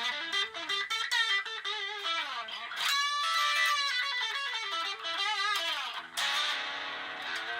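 Electric guitar played through a Raizin Sound overdrive/distortion pedal, giving a driven tone. It plays quick single-note lead runs, holds one note with vibrato about three seconds in, and pauses briefly about six seconds in.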